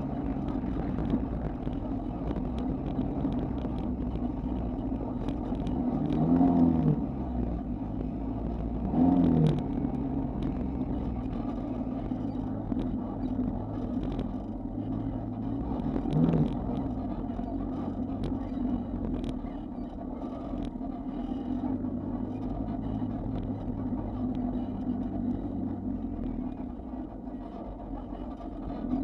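Off-road vehicle engine running as it drives through sand, revving up and back down in short bursts about six, nine and sixteen seconds in. Scattered knocks and rattles come from the rough ride.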